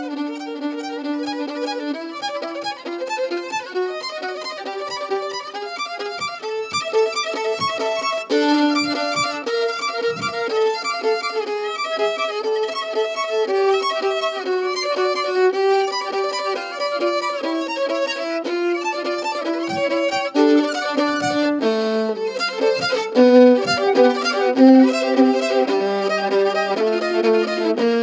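Live Venezuelan joropo music: a violin plays a running melody of held and quick notes, with a faint fast rhythmic ticking high up behind it.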